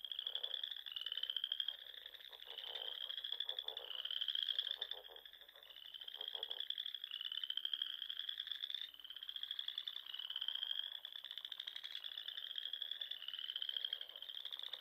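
Frog calling: a steady run of short, high, rising whistle-like calls, a little more than one a second. A lower pulsing trill runs under them for the first half.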